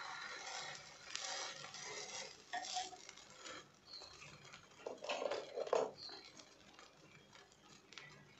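Metal spatula clicking and scraping on a flat tawa griddle as a bread sandwich is pressed and moved, with scattered taps and a louder run of scrapes about five to six seconds in. A hiss fades out over the first second.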